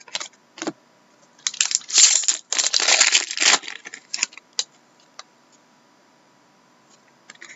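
Trading-card pack wrapper crinkling as it is handled, for about two seconds in the first half, with a few light clicks around it.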